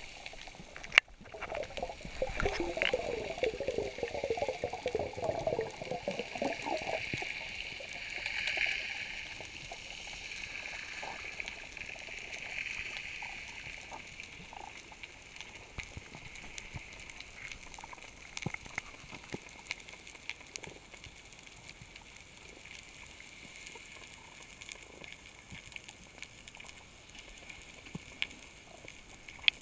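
Water heard through an underwater camera housing: a burst of bubbling and gurgling in the first few seconds, then a steady muffled hiss with scattered faint clicks.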